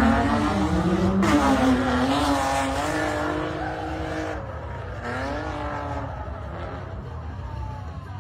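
Drift car engine revving at high rpm, its pitch climbing and then held, dropping away about four seconds in and revving up again more faintly.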